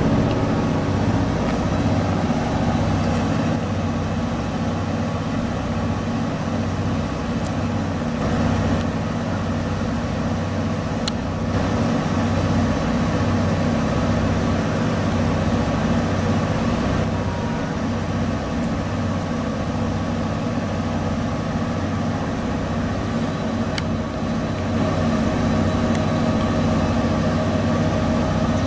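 Standing 24-series sleeper train humming steadily: the low, even drone of the diesel generator sets that power the coaches, running while the train waits at the platform.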